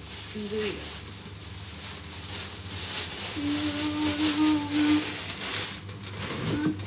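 Rustling and light clicking of a plastic bag being handled while vegetables are prepared. A woman's voice holds one steady note for about a second and a half near the middle.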